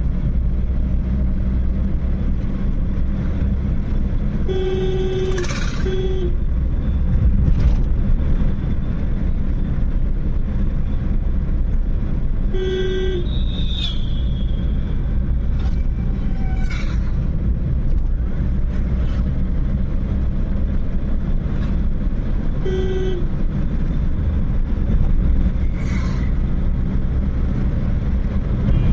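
Steady engine and tyre rumble of a car driving, heard from inside the cabin. A car horn sounds three times: a double toot about five seconds in, one short toot around thirteen seconds, and another near twenty-three seconds.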